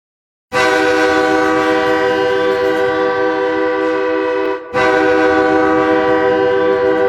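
Ice hockey goal horn blaring: a loud, steady chord-like blast starting about half a second in, a brief break past the middle, then a second long blast.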